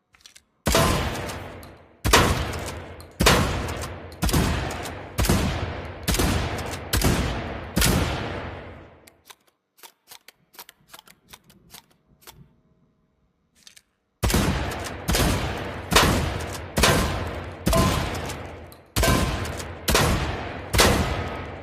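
Pump-action shotgun firing, two runs of about eight shots roughly a second apart, each shot ringing out and dying away. The two runs are separated by a few seconds of faint small clicks.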